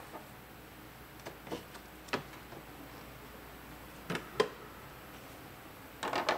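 Scattered sharp clicks and taps of plastic cowl trim under gloved hands, as debris is cleared from the cowl below a Porsche Cayenne's windshield, with a quick cluster of clicks near the end.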